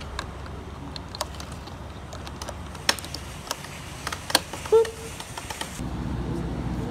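Plastic roof-rail bolt covers being fitted and pressed into place on the rail: a string of scattered light plastic clicks and taps, irregularly spaced. A low rumble comes in near the end.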